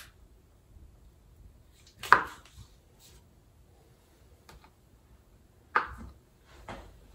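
Chef's knife slicing through a stick of butter and knocking on the cutting board: one sharp knock about two seconds in, two more near the end, with faint ticks between.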